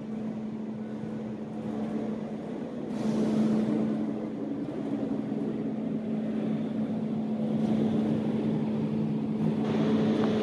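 A motor running steadily nearby, a constant low hum over a bed of street noise that gets somewhat louder about three seconds in and again near the end.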